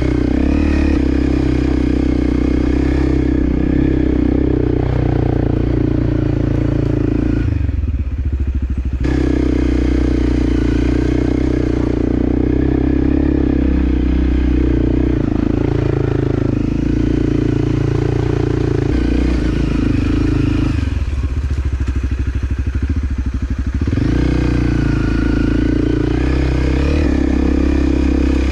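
Motorcycle engine running steadily on the move, the engine note dropping to a low pulsing putter twice as the throttle is eased off: briefly about a third of the way in, then for a few seconds past the two-thirds mark, before it picks up again.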